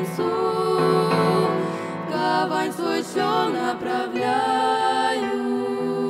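Girls' vocal trio singing a Russian-language hymn in harmony into microphones, holding wavering sung notes.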